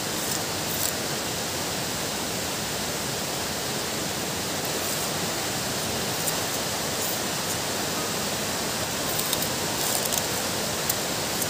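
A person biting and chewing a peeled raw wild sugarcane stalk, with a few faint crunches scattered through, over a steady even rushing noise.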